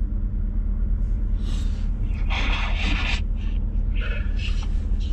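Steady low rumble of a car heard from inside the cabin while driving, with a short hissing noise in the middle.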